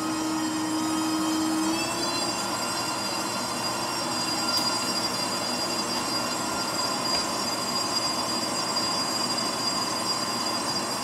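Countertop blender motor running steadily while it blends thick pancake batter, a continuous whine that shifts higher in pitch about two seconds in.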